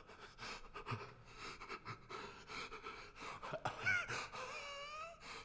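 A man panting heavily, one noisy breath after another. About three and a half seconds in, the breaths take on a wavering pitch.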